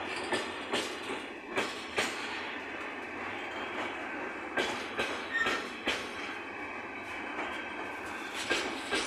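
Container freight train wagons rolling past: a steady rumble and rattle of wheels on rails, broken by sharp clacks in quick pairs, about four pairs in all, as wheelsets pass over the rails.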